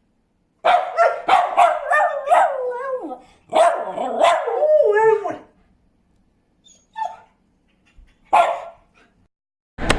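German Shepherd making warbling noises between a howl and a bark, mixed with a Keeshond's sharp barks, in two long bouts with wavering pitch. Two short single calls follow near the end.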